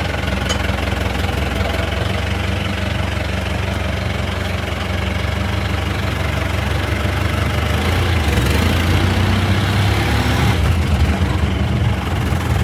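Modified landi jeep's engine running as it drives slowly, heard from inside the open cabin. The engine note grows louder from about eight seconds in, with a short lull near the end.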